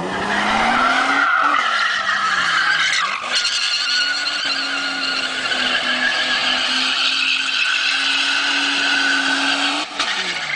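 Stock VX Commodore's V6 held at high revs in a burnout, its rear tyres squealing and smoking continuously against the pavement. The revs climb, sag about three seconds in, then hold steady and high before falling off near the end.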